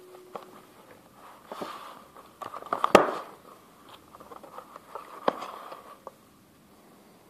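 Hands handling a phone box's cardboard insert and pulling a plastic wall charger out of it: scattered clicks, knocks and rustles of cardboard and plastic, the loudest knock about three seconds in, stopping about six seconds in.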